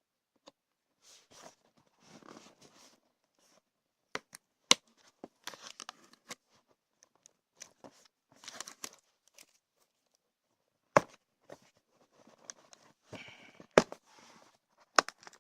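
Cardboard box being opened by hand: tearing and rustling of cardboard and plastic packaging, broken by scattered sharp clicks and knocks.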